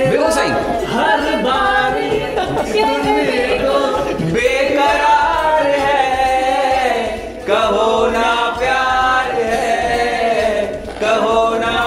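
Unaccompanied singing of a song into a handheld microphone, sung in phrases with short breaks between them.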